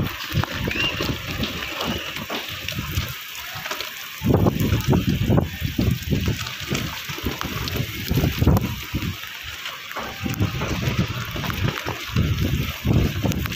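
Heavy rain falling in a storm, a steady hiss, with gusts of wind buffeting the microphone in irregular low surges.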